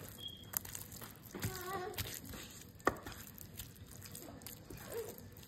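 Faint handling sounds of hands working seasoning into raw chicken on a wooden board, with a few sharp clicks. A short child's vocal sound comes about one and a half seconds in.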